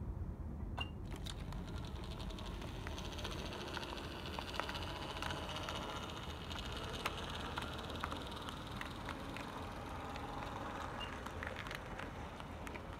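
An HO-scale brass model train rolls past on metal track: a steady rolling rattle of wheels and running gear, with scattered sharp clicks as the wheels cross rail joints.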